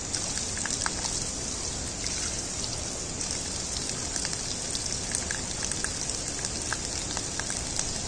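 Water pouring steadily from a roadside spring's pipe spout and splashing onto the wet ground below, with a few small ticks of drips and splashes.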